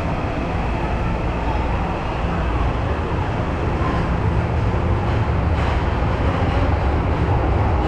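Train running through a railway station: a steady low rumble that grows slightly louder, with a few faint clicks in the second half.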